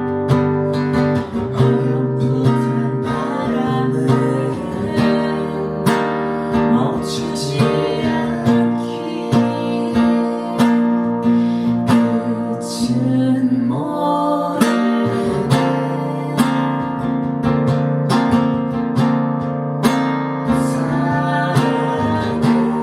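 Acoustic guitar strummed and plucked in a steady rhythm, a song's accompaniment played as music.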